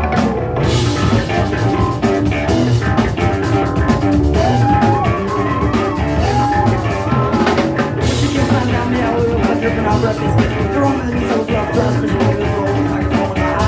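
Live rock band playing an instrumental passage with drum kit, bass and guitar, and a few sliding high notes about halfway through.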